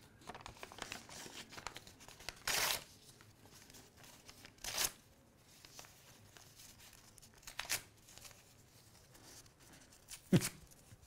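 Paper being torn by hand in a few short rips, with rustling and crinkling of paper between them. Near the end comes a brief sharp sound with a quickly falling pitch, the loudest moment.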